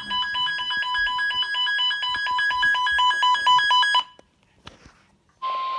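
Emergency Alert System broadcast tones: a rapid, buzzy electronic beeping pulses for about four seconds and cuts off sharply. After a short gap of near silence, a steady single alert tone starts near the end.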